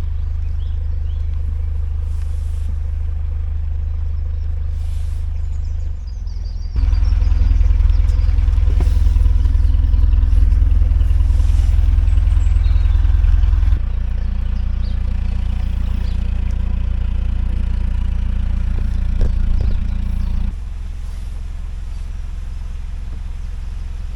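Narrowboat's diesel engine running steadily, a continuous low rumble. It changes abruptly three times, about seven, fourteen and twenty seconds in, getting much louder and deeper at the first change and quieter at the last.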